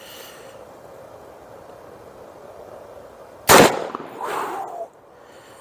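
A single .357 Magnum round fired from a Herters revolver about three and a half seconds in: one sharp, loud shot trailing off for about a second.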